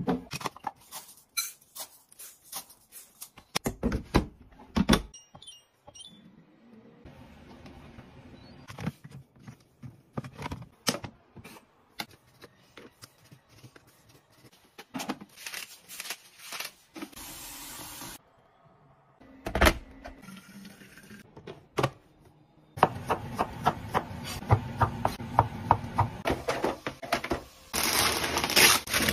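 A run of kitchen handling sounds: clicks and knocks of appliance buttons and utensils, a knife cutting on a plastic cutting board, and baking paper crinkling near the end.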